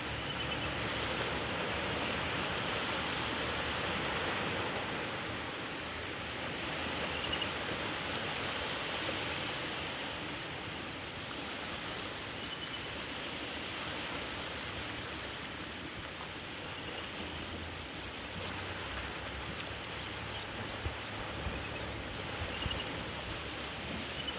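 Steady rush of lake water at the shore, with a faint short high chirp, like a bird's, coming back every five seconds or so.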